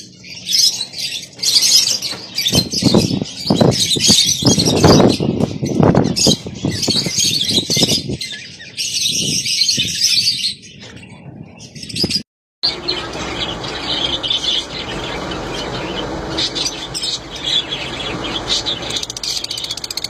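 A flock of caged budgerigars chattering and chirping without pause, with bursts of wing flapping in the first half. About twelve seconds in, the sound cuts out briefly and goes on as fainter chirping over a steady hiss.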